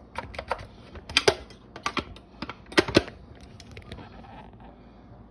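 Irregular light clicks and knocks of things being handled on a kitchen counter, clustered in the first three seconds, then only faint room noise.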